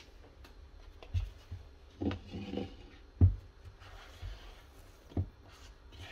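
Hands kneading a soft dough in a plastic mixing bowl: rubbing and squishing with a few irregular dull thumps, the loudest about three seconds in.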